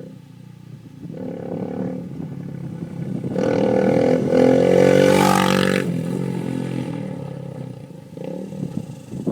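Honda CRF230M's single-cylinder four-stroke engine through a Two Brothers aftermarket exhaust, building up, loudest for a couple of seconds in the middle, then falling away.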